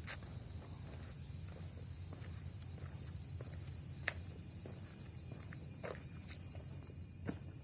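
A steady high-pitched chorus of insects, with a few scattered footstep crunches on the ground underfoot.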